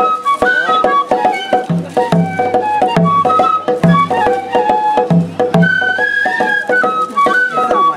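Japanese festival hayashi music: a flute plays a stepping melody over frequent drum strikes and a low, regular drum beat.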